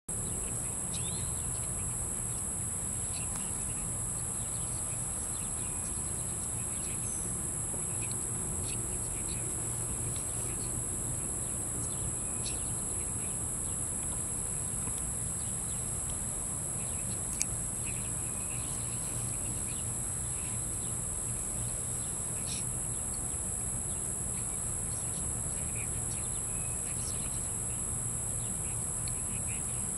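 Steady high-pitched insect chorus, an unbroken drone over a low steady rumble, with a few faint short chirps scattered through it and one sharp click near the middle.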